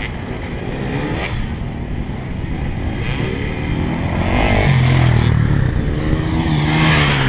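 Dirt bikes racing around an enduro track. From about four seconds in, one bike's engine grows louder, revving up and down as it comes closer.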